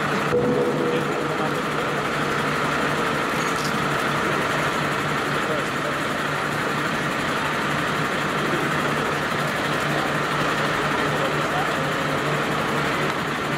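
Diesel engine of a MAN refuse truck running at low speed, a steady hum, with voices in the background.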